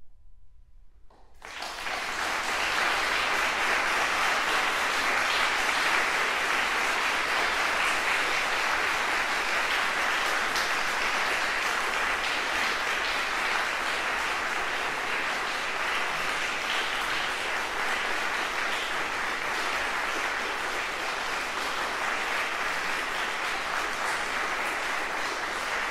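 Concert hall audience applauding. It starts suddenly about a second and a half in, after the last guitar note has died away, and stays steady and dense throughout.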